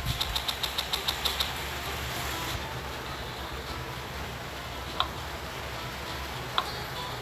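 A budgie making a quick run of clicks, about six a second for a second and a half, then two single short sharp chirps, over a steady low hum.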